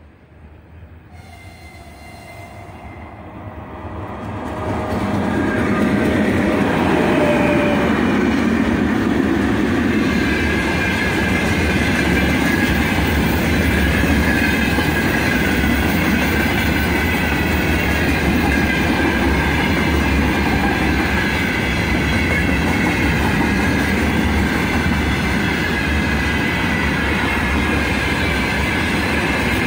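Freight train hauled by 2ES5K Ermak electric locomotives approaching and passing, swelling over about five seconds, with a tone that slides slightly down in pitch. Then a long string of open freight wagons rolls by with a steady rumble and wheel clatter.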